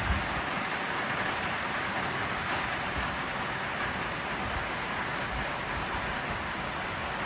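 Steady rain falling, an even hiss with no separate drops or knocks standing out.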